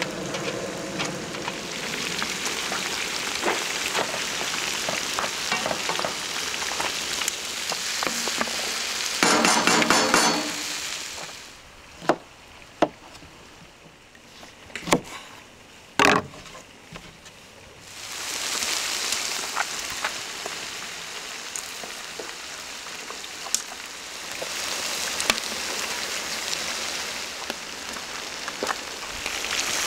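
Whole fish frying in hot oil in a pan, a steady sizzle, briefly louder about nine seconds in. For about six seconds from around twelve seconds in the sizzle drops away while a knife cuts a lemon on a wooden board, a few sharp knocks, then the sizzling returns.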